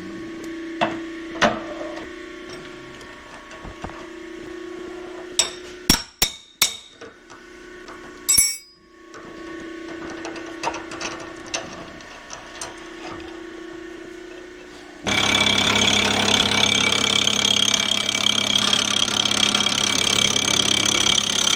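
Metal parts and tools being handled in a machine shop: scattered knocks and clanks over a steady hum. About fifteen seconds in, a power tool starts suddenly and runs loudly and steadily.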